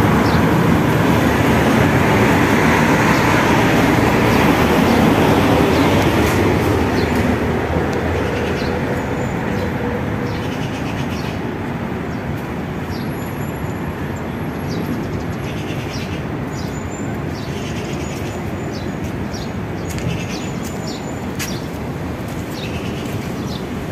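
Steady rumble of passing traffic, loud for the first six seconds or so and then fading away. Small birds chirp over it through the rest.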